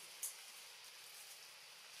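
Faint, steady high hiss of forest background noise, with one brief sharp click about a quarter of a second in.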